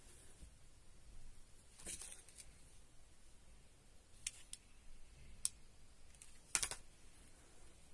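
Hands handling small craft items on a tabletop: a soft rustle about two seconds in, then a few short, sharp clicks and taps, the loudest near the end.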